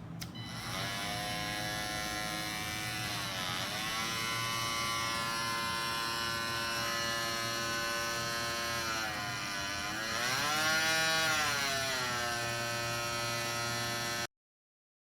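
KIMO 20V cordless oscillating multi-tool motor running with a steady buzz. Its pitch sags twice, about three seconds in and again around ten seconds in. The sound cuts off suddenly near the end.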